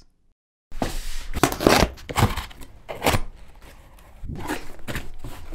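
Cardboard shipping box being handled and opened: after a brief silence, a quick run of loud ripping and scraping strokes, then quieter rustling of the cardboard.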